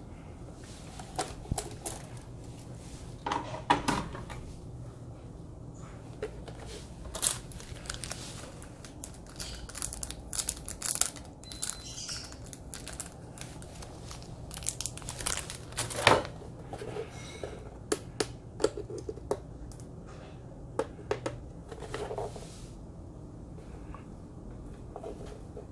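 Plastic packaging crinkling and tearing in irregular bursts, with scattered clicks and knocks, as a boxed light fixture is unwrapped and handled. A faint steady low hum runs underneath.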